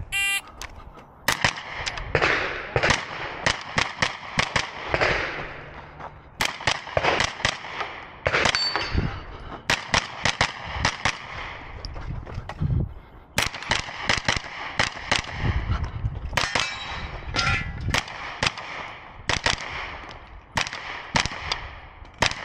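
Shot timer beep, then a JP Rifles JP-5 9mm pistol-caliber carbine fired in fast strings of shots, with short pauses between strings.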